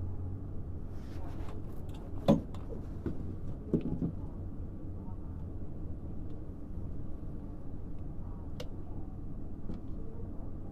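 Steady low hum of a VAV terminal unit with its electric reheat energized, broken by two sharp clicks about two and four seconds in.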